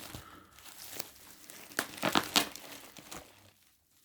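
Plastic protective packaging crinkling and rustling in scattered bursts as a parcel is unwrapped, dying away shortly before the end.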